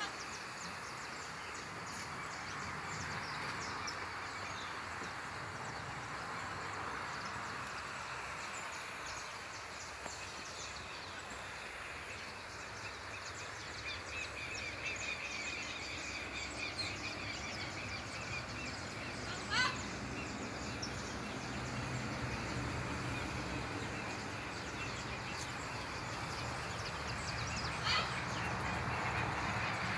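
Outdoor ambience: a steady hiss with birds chirping. Two short, louder calls come about two-thirds of the way through and near the end, and a low hum rises in the second half.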